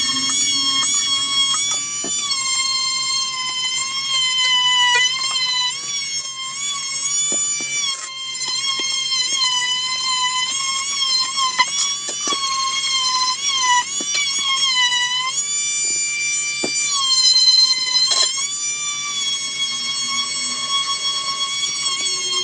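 A small high-speed rotary tool running with a steady high whine that sags in pitch several times as it is pressed into the work, with scattered sharp clicks.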